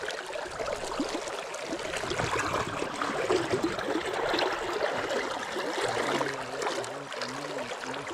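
River current flowing and gurgling steadily around the wading angler. A faint, low wavering hum joins in over the last couple of seconds.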